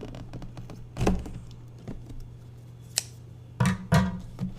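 Cardboard box being handled while its packing tape is cut and peeled off: a few thumps and scrapes, a sharp click about three seconds in and two heavier knocks near the end, over a steady low hum.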